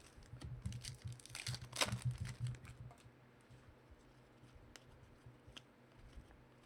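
Trading cards and their packaging being handled: soft rustling and crinkling with scattered clicks, busiest in the first three seconds, then only a few faint clicks.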